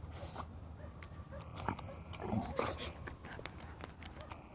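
A dog sniffing and snuffling with its nose in the grass, in a run of short, irregular noises that are loudest around the middle.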